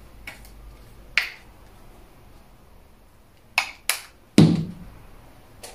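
Six or so sharp clicks and taps at uneven intervals, the loudest about four and a half seconds in with a dull knock under it.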